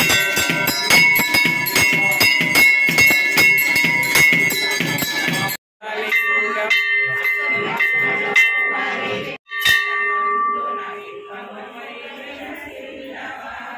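Temple bells rung rapidly during Shiva puja, clanging strikes several a second with a bright ringing tone. The ringing cuts off abruptly twice, and near the end a single fainter ring dies away.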